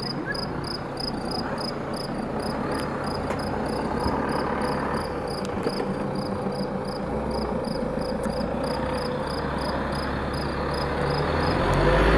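A cricket chirping steadily, about two to three high chirps a second, over an outdoor hum and a low vehicle-engine rumble that swells near the end as a coach bus is in view.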